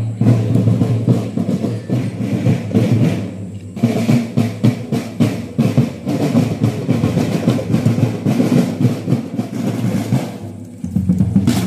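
A school marching drum band playing a marching beat with drum rolls on snare-type marching drums. The drumming briefly thins out near the end, then comes back in loud.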